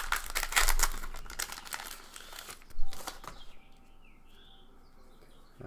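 A trading-card pack wrapper being torn open and crinkled for about two and a half seconds, with one sharp crackle near three seconds, then only faint handling.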